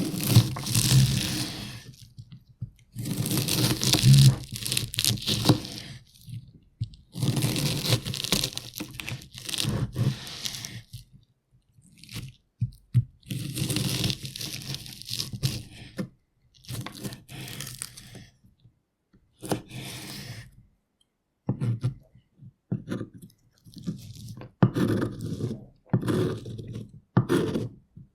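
A knife cutting and chopping an onion on a cutting board: crunchy slicing strokes through the layers, with knocks on the board, in runs of a second or two with short pauses between, the later runs shorter and sparser.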